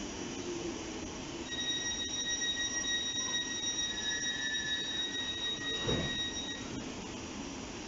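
Thameslink Class 700 electric train at the platform closing its doors: a steady high tone with overtones sounds for about five seconds, and the doors shut with a thud about six seconds in.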